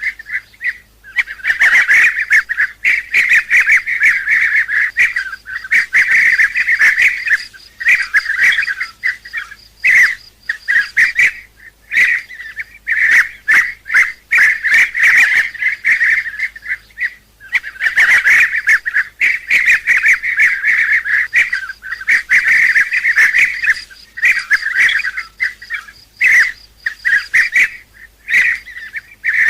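Bee-eaters calling: loud, rolling calls repeated in quick succession, in dense bouts of a second or two broken by short pauses. This is a bee-eater call recording of the kind used as a lure to draw the birds in.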